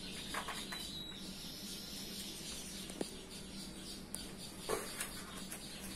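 Quiet room tone with a steady low hum, a few faint clicks and a faint high chirping near the start.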